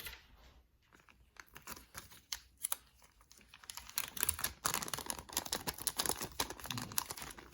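Hands handling small packaging: a run of small clicks and crinkling, sparse at first and busier from about halfway through.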